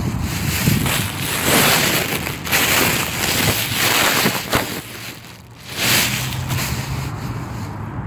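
Wind gusting on the microphone: a loud rushing noise that swells and falls, with a short lull about five seconds in.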